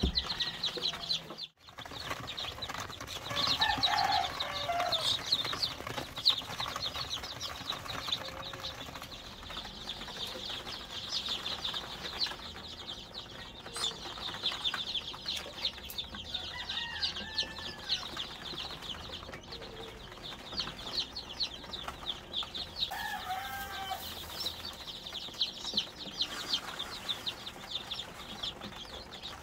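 A brood of newly hatched upgraded native chicken chicks peeping constantly in a brooder, a dense chorus of short, high peeps. A few lower, longer gliding calls stand out now and then.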